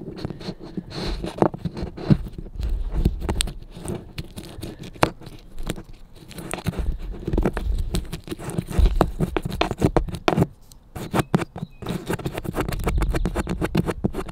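Stepped drill bit turned by hand in a hole in an RV's outer wall, scraping and clicking irregularly as it widens the hole.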